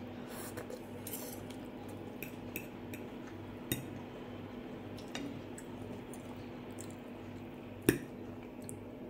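A fork and knife clinking and scraping on a glass plate of rice and vegetables, a scatter of light clicks with a sharper clink about four seconds in and the loudest near the end. A steady low hum runs underneath.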